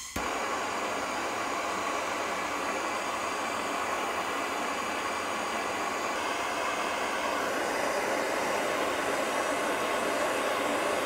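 A heater switching on with a click just after the start, then running with a steady rushing hiss as it heats the steel hot cap of a homemade Stirling engine.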